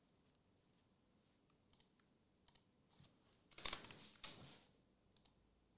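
A few faint, scattered computer-keyboard key clicks, with a brief, slightly louder noise about three and a half seconds in.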